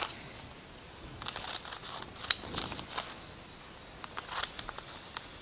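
Scissors cutting newspaper: several irregular, sharp snips of the blades with soft paper rustling in between.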